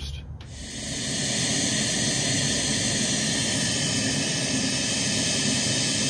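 Pink noise played through a Cicada Audio CHX 8-inch pro coaxial horn speaker with no tweeter attenuation: a steady static hiss that starts about half a second in and swells over the first second, then holds level.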